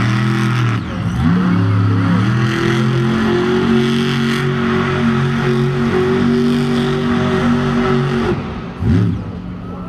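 Monster truck engine revving hard as the truck churns through dirt: a couple of quick revs, then held at high revs for about six seconds before it cuts off sharply, with one short blip of the throttle just after.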